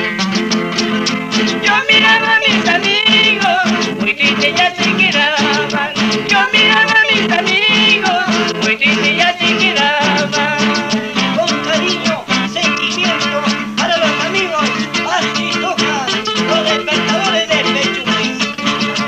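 Andean folk band music with plucked guitar strings and a wavering melody line over a steady beat.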